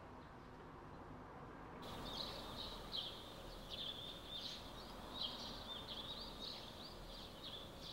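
Small birds chirping repeatedly in quick, high chirps that begin about two seconds in, over a faint steady outdoor background noise.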